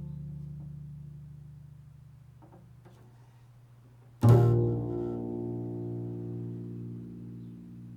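Improvised solo tone-poem music on a low-pitched instrument: a deep note left ringing from before fades away, then a second low note is struck sharply about four seconds in and rings on, slowly dying away.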